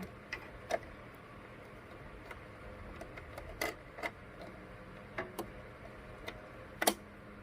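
Scattered small plastic clicks and taps from fitting the bobbin cover back onto a Singer sewing machine, with one sharper click near the end.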